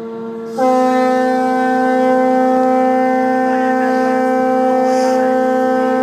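Boat horns blowing together in salute: one steady horn is already sounding, and a second, louder horn at a slightly higher pitch joins about half a second in. Both are held without a break.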